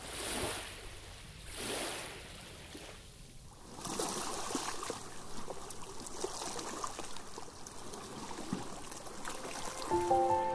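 Sea water washing against rocks: two small waves rush in during the first two seconds, then the water laps and trickles among the rocks with many small splashes. Music comes in near the end.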